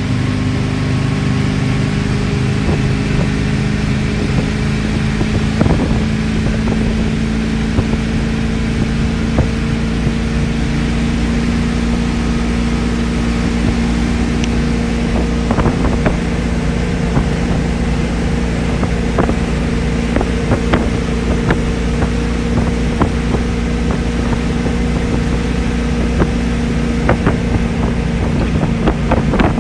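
MasterCraft boat's inboard engine running steadily under way, its pitch creeping up slightly in the first few seconds and then holding, with scattered light knocks through it.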